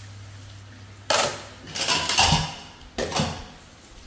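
Dishes and utensils clattering in a stainless-steel sink during washing-up, in three bursts about a second apart.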